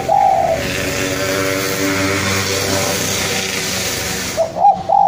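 Spotted dove giving a short coo at the start and again near the end. In between, a motor vehicle's engine passes for about four seconds and drowns out the dove.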